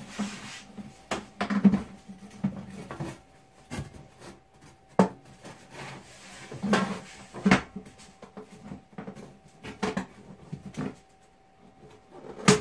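Irregular knocks and clanks of a galvanized sheet-metal duct being handled and fitted on a workbench, with a faint steady hum underneath.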